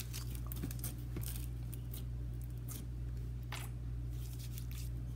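Thick slime with foam beads squeezed and worked by hand, giving scattered soft crunches and clicks.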